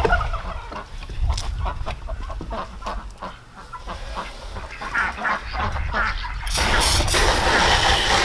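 Domestic ducks calling among scattered knocks of a plastic kiddie pool being handled. About six and a half seconds in, a garden hose nozzle starts spraying water into the plastic pool with a steady hiss to rinse it out.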